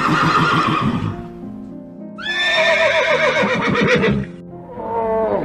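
Horse neighing over background music: a rough call at the start, then a long quavering whinny that falls in pitch, and a shorter falling call near the end.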